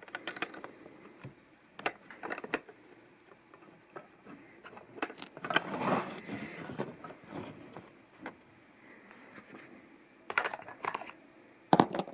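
Plastic LEGO pieces being handled and pressed together: scattered sharp clicks and short rattles, with a busier spell of clicking and rustling about five to seven seconds in.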